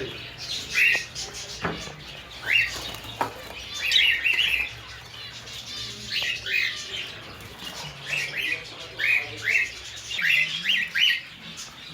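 Caged pet birds chirping: short, sharp calls, about one every second or two, with several in quick succession near the end.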